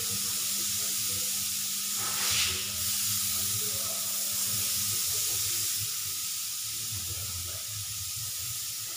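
A steady hiss, with a low hum under it that stops about five seconds in and a brief louder rush of noise about two seconds in.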